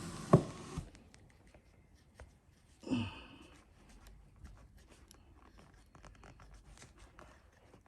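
Faint scraping and small ticks of a pedicure blade shaving thick, hardened skin from a cracked sole, with a rustle and one sharp knock in the first second and a short louder sound about three seconds in.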